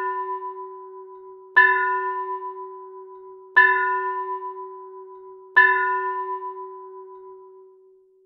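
A bell struck three times, about two seconds apart. Each stroke rings on with a slightly pulsing tone that slowly dies away, and the last ring fades out near the end.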